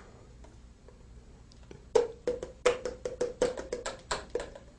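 A quick run of about a dozen sharp plastic taps, about five a second, starting about two seconds in: a plastic formula dispenser being knocked against a baby bottle to empty the powdered formula into the water.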